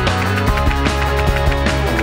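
Background music: a rock-style track with a steady driving beat.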